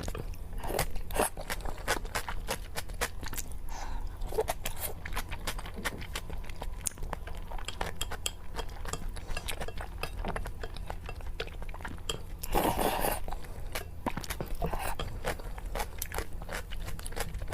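Close-miked chewing and wet mouth clicks of someone eating spicy noodles, with a louder, longer noisy stretch about thirteen seconds in.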